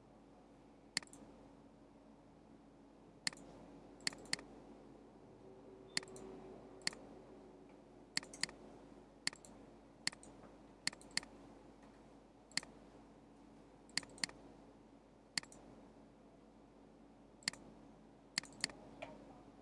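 Computer mouse button clicking about twenty times at irregular intervals, some clicks in quick pairs, as lines are placed one after another in a CAD sketch. A faint steady hum runs underneath.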